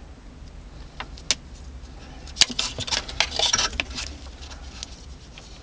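Small plastic clicks and rattles of a handheld wiring-harness connector and its bundle of wires being turned in the fingers: a few single clicks, then a busier patch of rattling in the middle, over a low steady hum.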